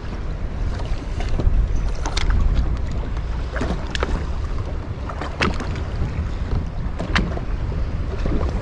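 Choppy water lapping against the hull of a drifting fishing boat, with a few sharp slaps of waves on the side over a steady low wind rumble on the microphone.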